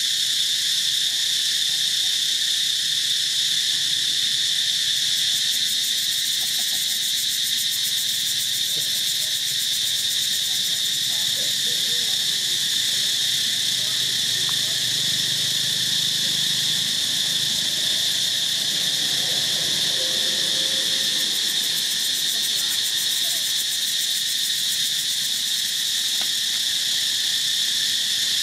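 Steady, unbroken chorus of insects: a dense high-pitched drone that holds level throughout.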